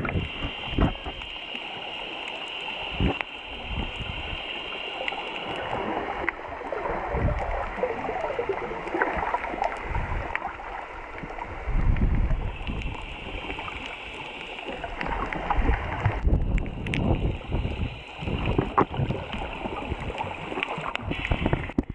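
Water sloshing and gurgling around a camera held underwater, muffled, with irregular low thumps as it moves through the water.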